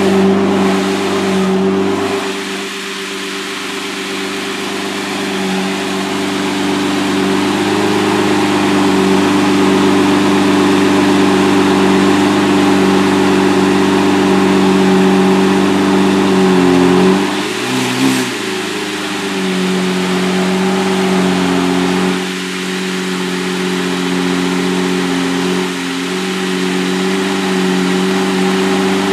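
Lamborghini Murciélago LP670-4 SV's V12 engine idling steadily through its exhaust, with a brief dip and change in its note about two-thirds of the way through.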